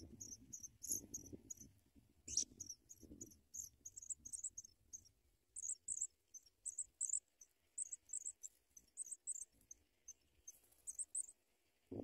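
Pipit nestlings begging: faint, high, thin chirps in quick irregular runs, with soft rustling in the grass during the first few seconds.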